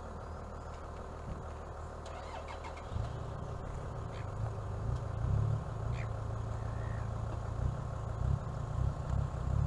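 An engine starts about three seconds in and keeps running with a low, pulsing drone, over a steadier low hum.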